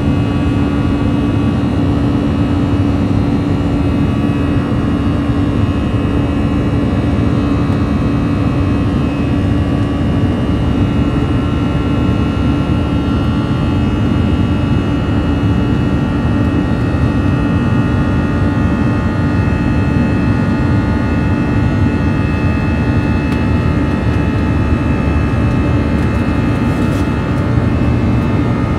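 Airbus A321's CFM56 turbofan engines heard from inside the cabin during climb-out: a loud, steady rumble with a buzz of several steady tones over it, the CFM buzz.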